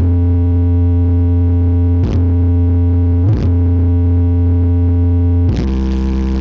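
Sound horeg street sound system playing sustained low synthesizer bass notes, broken by brief pitch slides about two and three and a half seconds in and moving to a different note about five and a half seconds in.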